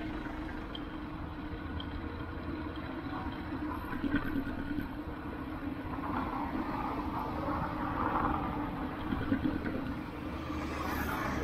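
Busy city street traffic heard from a bicycle: vehicle engines running and passing, with a steady low rumble and a louder swell of a passing vehicle from about six to nine seconds in.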